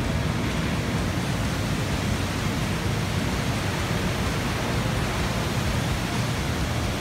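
Steady roar of fast-flowing white water from a waterfall and its river, even and unbroken.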